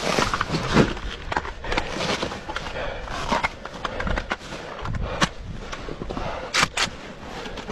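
Knocks, clatter and rustling of gear and clothing as a soldier moves through a trench, with a few sharper cracks near the end.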